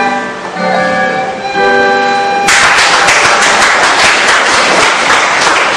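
A recorder plays the last sustained notes of a piece with accompaniment, and about two and a half seconds in audience applause starts suddenly and continues loudly.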